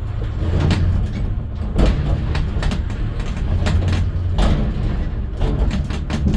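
A large road vehicle in motion: a steady low engine and road rumble, with repeated sharp knocks and rattles throughout.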